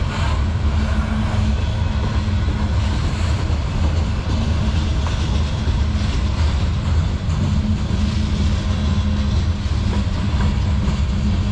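Freight train of covered hopper cars rolling past: a steady low rumble with wheel-on-rail noise.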